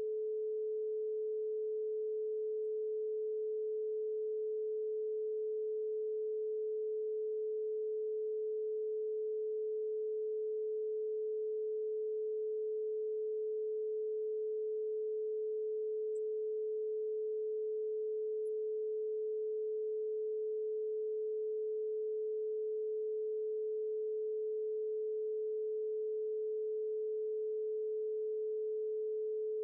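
Electronic sine tone held at one steady mid pitch at constant loudness, a synthesized healing-frequency tone.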